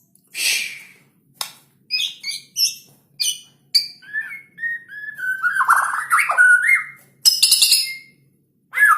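White-rumped shama (murai batu) singing loudly in quick phrases: a harsh rasping note, a run of short sharp chips and falling whistles, then a long warbling phrase and another harsh burst, with a brief pause near the end.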